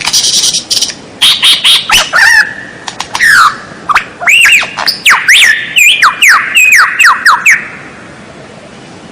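White-rumped shama (murai batu) singing loudly: a few harsh rasping notes, then a fast run of sharp whistled notes that slide down and loop in pitch, breaking off about three quarters of the way through.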